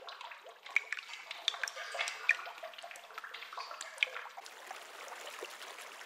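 Water drops falling into a still pool: an irregular scatter of small plinks and ticks over a soft trickling hiss.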